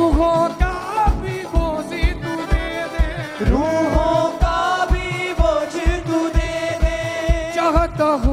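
Live Hindi worship-song band playing: a steady drum beat at about two beats a second under keyboard and a gliding, wavering melody line.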